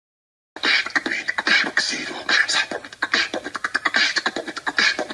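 Beatboxing: quick mouth-percussion clicks, thumps and hissed snare-like bursts in a busy rhythm, starting about half a second in.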